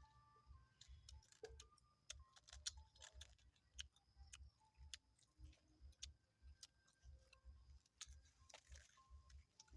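Faint, irregular clicks and smacks of a dog chewing and licking cake, over a low, uneven rumble.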